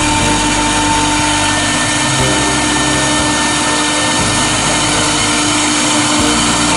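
CNC router's HQD spindle running at speed with a steady whine, its bit carving a relief into a wood panel with a constant cutting noise.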